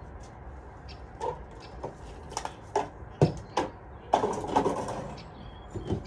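Hollow plastic knocks and rattles from a children's playhouse being pushed and shifted back into place: a string of sharp knocks, with a busier clatter about four seconds in.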